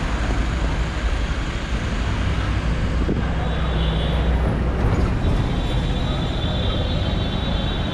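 Steady city street traffic: the rumble of engines and tyres from passing cars, taxis and a bus.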